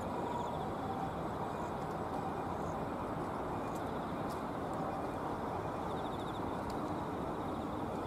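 Steady hum of road traffic from the nearby bridges, even and unbroken, with faint high trills now and then.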